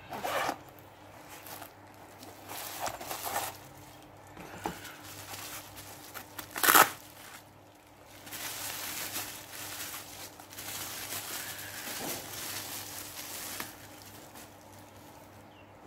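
Packaging being handled during an unboxing: scattered rustles from a padded microphone pouch and a cardboard box, the loudest a sharp crackle about seven seconds in. Then several seconds of plastic bubble wrap crinkling as it is pulled off the microphone.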